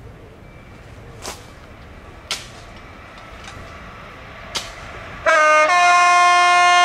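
Class 66 diesel locomotive's horn sounding loudly about five seconds in: a short note, then a longer note at a different pitch. Before it, a few sharp clicks over a low rumble.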